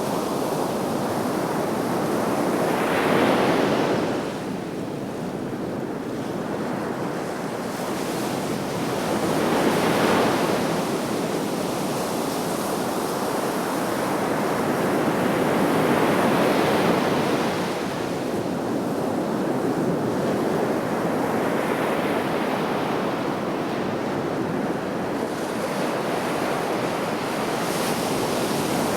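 Sea waves breaking and washing on the shore, a continuous rush of surf that swells and ebbs every several seconds, with wind on the microphone.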